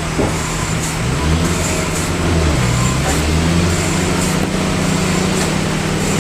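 Sawmill machinery running steadily: a low engine-like drone with hiss over it.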